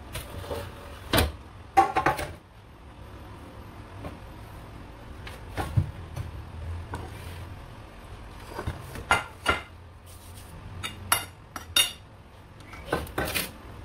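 Metal bakeware being handled on a stone counter: a greased round baking pan and a metal baking tray set down and moved, giving scattered sharp knocks and clinks, the loudest about two seconds in, over a low steady hum.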